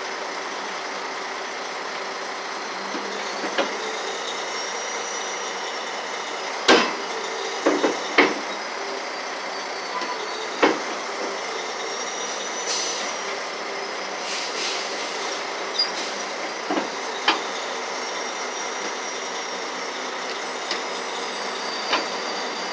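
Heavy tow truck's hydraulic wheel-lift working under a flatbed truck's rear wheels, over the tow truck's steady running noise. A thin, wavering high squeal and a series of sharp metal clanks, the loudest about seven to eleven seconds in.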